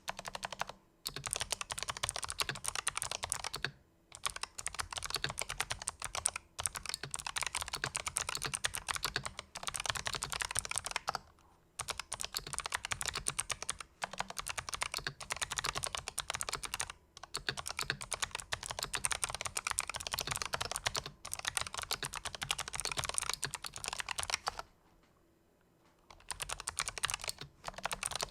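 Typing on a Razer Huntsman Elite keyboard with fully lubricated purple clicky switches: fast runs of key presses in stretches of a few seconds, broken by short pauses and one longer pause near the end.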